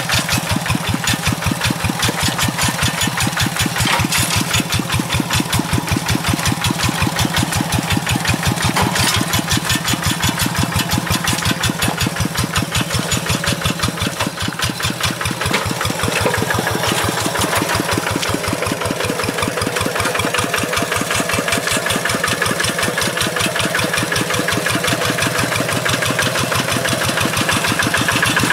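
Single-cylinder Kubota RD85Di2S diesel engine of a Quick G1000 two-wheel hand tractor running steadily with a fast, even chug as the tractor drives on its cage wheels.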